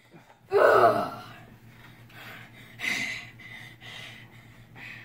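A person's short, loud gasping cry about half a second in, falling in pitch, followed by quieter handling sounds.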